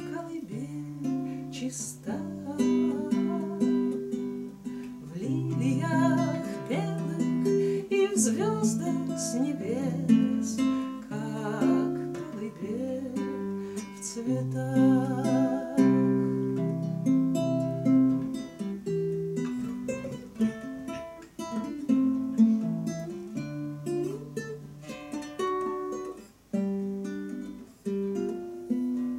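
Two classical guitars playing an instrumental passage together, plucked and strummed chords changing every second or two.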